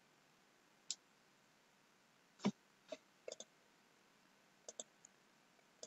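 Faint, scattered clicks of a computer mouse, about eight over several seconds, some in quick pairs.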